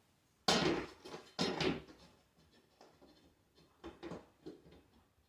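Handling noise of tools or building materials: two louder scraping, rustling sounds in the first two seconds, then a few light knocks.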